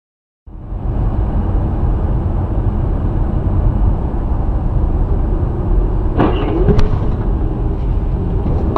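Steady rumbling road noise of a moving vehicle, starting abruptly half a second in. A few clicks and a brief rising tone come a little after six seconds in.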